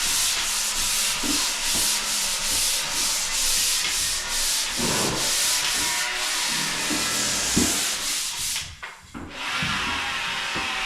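Pole sander with sandpaper scrubbing over dried drywall joint compound on the screw spots, in quick, even back-and-forth strokes of about three a second. It stops briefly near the end, then resumes more softly.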